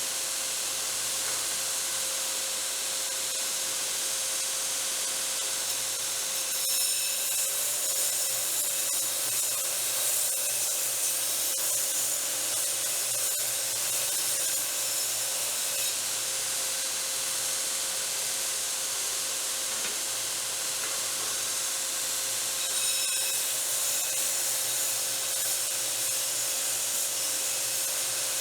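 TW90 belt grinder running steadily, its abrasive belt grinding forged railroad-track steel stock down to thickness, with a steady hiss and a constant hum. The grinding gets a little louder about six seconds in and again near the end.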